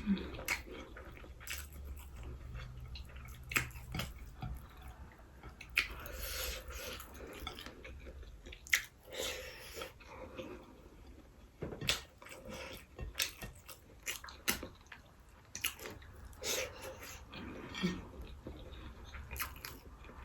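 A person chewing mouthfuls of fried rice close to the microphone, with irregular soft clicks and mouth smacks.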